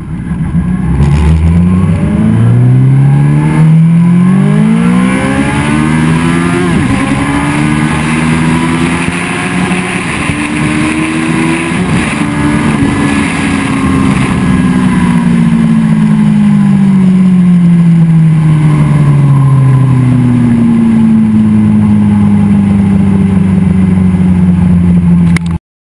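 2013 Kawasaki ZX-14R inline-four through a Brock's Performance Alien Head 2 full exhaust system, heard from on the bike. The engine accelerates up through the gears with rising revs and breaks at the shifts, then the revs fall slowly as the throttle comes off. It settles to a steady cruise before cutting off suddenly near the end.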